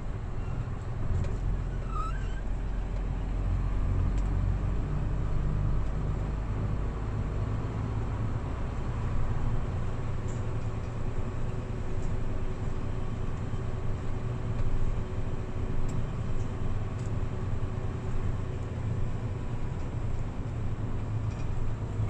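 Hino Profia truck's diesel engine running steadily while driving, with road noise.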